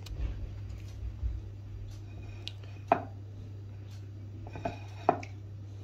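A ceramic plate shifted on a countertop, giving a few light knocks. The two loudest come about three and five seconds in, over a steady low hum.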